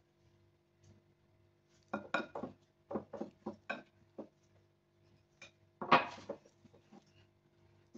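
A white mixing bowl clattering and knocking on a stone counter as hands work flour into a soft dough, in several short clusters of clicks, the loudest about six seconds in.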